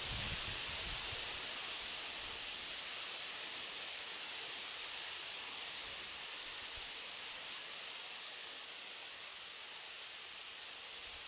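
Steady outdoor hiss with no bird calls, and a few low rumbling bumps in the first two seconds.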